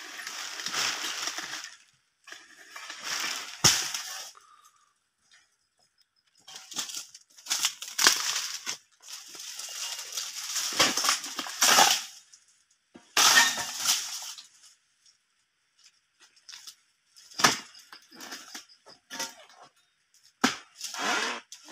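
Long-handled harvesting blade chopping into oil palm fronds and bunch stalks: repeated bouts of crunching and rustling as the fronds are cut, a heavy thud about four seconds in, and a few short sharp knocks near the end.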